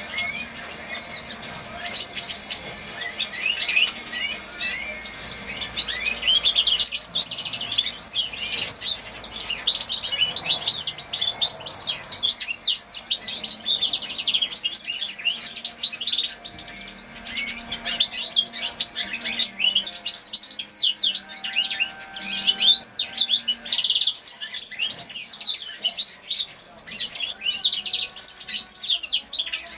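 Young hybrid finch sired by a grey singing finch, singing a long, unbroken song of quick, high twittering phrases and trills. It gets louder about seven seconds in.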